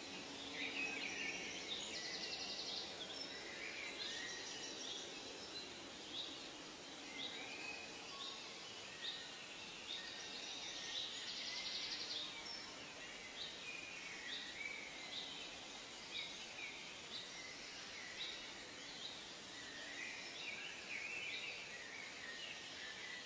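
Nature ambience of many birds chirping and calling over a steady background hiss, with a brief buzzy trill about two seconds in and another about eleven seconds in.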